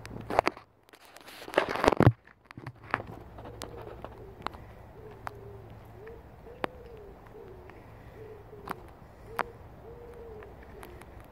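Pigeon cooing: a steady run of soft, low coos repeated one after another from a few seconds in. Near the start, two short loud bursts of noise, and a few sharp clicks are scattered through.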